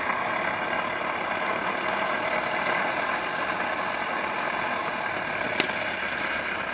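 Homemade lure course machine running steadily, its battery-powered drive motor pulling the lure line around the course. One sharp click about five and a half seconds in.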